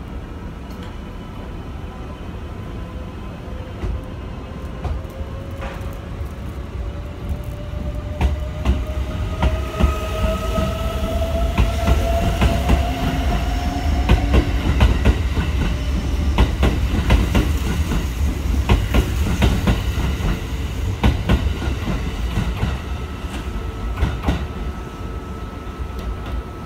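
Kintetsu 23000 series Ise-Shima Liner pulling out, its Mitsubishi GTO-thyristor VVVF inverter whining in several tones that rise in pitch as it gathers speed. From about a third of the way in, wheels clatter rhythmically over the rail joints as the cars pass, over a steady rumble that eases off near the end.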